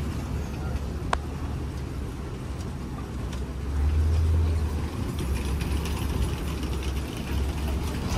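Safari ride truck driving, its engine giving a steady low rumble that swells for about a second near the middle. A single sharp click comes about a second in.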